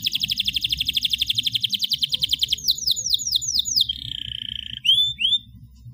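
Domestic canary singing: a fast rolling trill, then a run of about five quick downward-sweeping notes, a short buzzy held note, and two rising chirps near the end.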